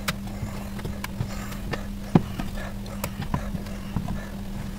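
Halved onions set down one after another on an oiled metal roasting tray: a run of soft, irregular knocks, the sharpest about two seconds in, over a steady low hum.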